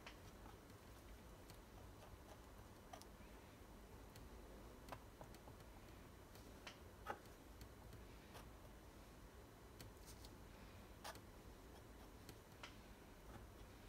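Near silence with faint, irregularly spaced light clicks and taps of a metal palette knife working thick acrylic paint on a canvas.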